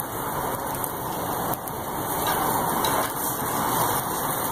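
Steady rushing hiss of a gas grill cooking chicken strips: the burners running and the meat sizzling on the grate.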